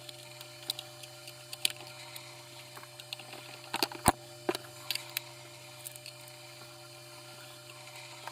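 Scattered light clicks and knocks from the parts of an electric fan being handled during repair, the loudest a short cluster about four seconds in, over a steady low hum.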